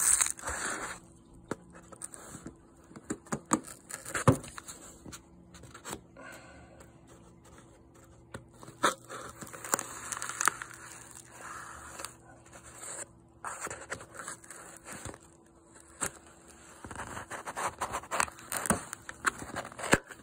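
A dull old bayonet blade scraping and slicing through packing tape and cardboard on a shipping box, in irregular scratchy strokes with small clicks and tearing.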